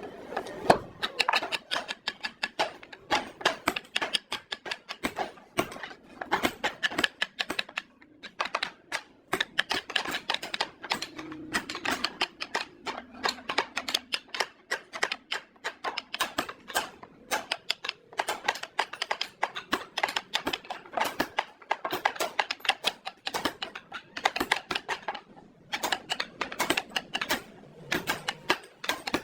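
Rapid, irregular light tapping and clicking of hand work on wood, many sharp strikes a second with brief pauses.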